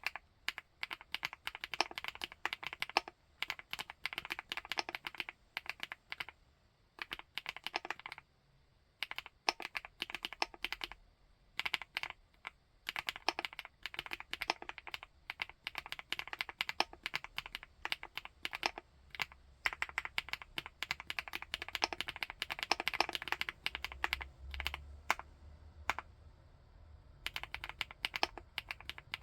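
Typing on a 75%-layout full-aluminium mechanical keyboard: rapid runs of keystrokes, broken by short pauses several times.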